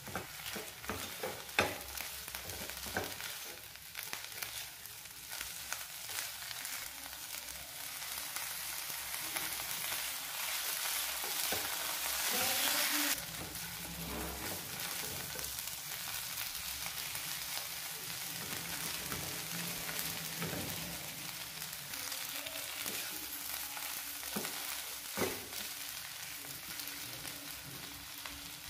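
A wooden spatula stirring and mashing spiced potato filling in a hot nonstick frying pan: steady sizzling and scraping, with sharp taps of the spatula on the pan in the first few seconds and twice near the end. The sizzle swells for a few seconds and drops off suddenly about halfway through.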